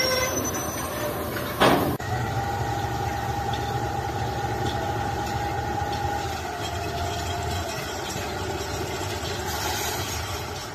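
TGM8KM diesel-hydraulic shunting locomotive running as it moves off with a coach. A high wheel squeal fades at the start, and a sharp bang comes just under two seconds in. The engine's low rumble carries a steady whine that drops a little in pitch past the middle.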